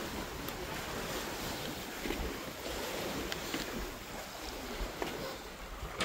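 Wind blowing over the microphone: a steady, even rush with uneven low buffeting, and no other clear sound.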